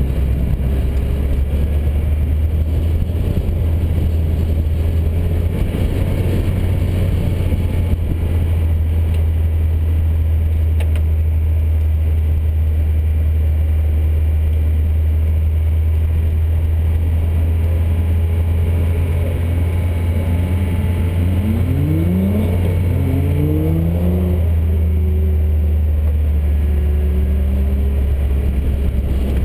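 Car engine being driven hard through an autocross course, under a heavy low rumble; about two-thirds of the way in the engine note climbs several times in quick succession as the car accelerates between cones.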